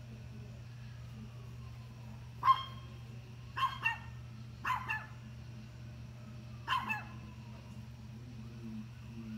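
A dog barking at a deer: about six sharp barks in four bursts, two of them doubled, spread over a few seconds.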